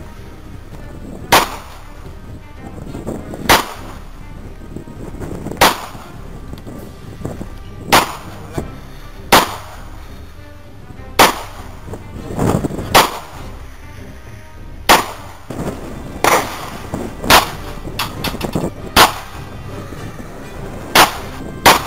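Ruger Mark II .22 LR semi-automatic pistol being fired in slow, aimed single shots: about a dozen sharp cracks, spaced one to two seconds apart, a few coming closer together.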